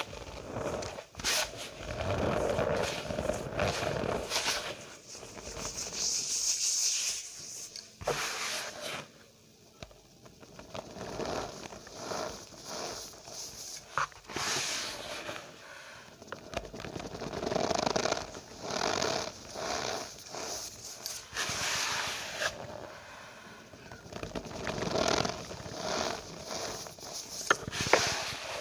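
Cornstarch powder squeezed and pressed by hand, giving squeaky, crunching scrapes in irregular bursts with short pauses between them.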